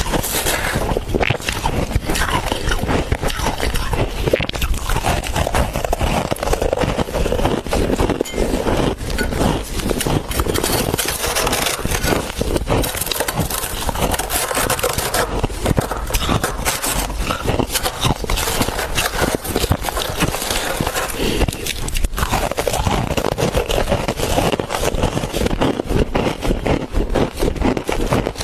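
Freezer frost being scraped, bitten and chewed close to the microphone: a dense, continuous crunching and scraping crackle of many small cracks.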